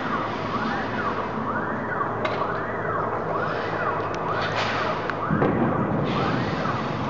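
A siren wailing, sweeping up and down about once a second, over street noise with a couple of sharp bangs.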